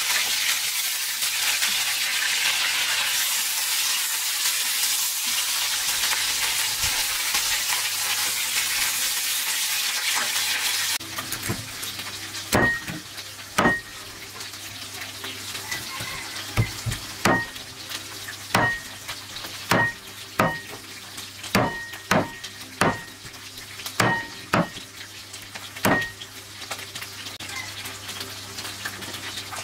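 Fish pieces sizzling as they fry in a pan. About eleven seconds in, this gives way to a large knife chopping boiled chicken on a chopping board: about a dozen sharp chops, roughly a second apart, each with a brief ring.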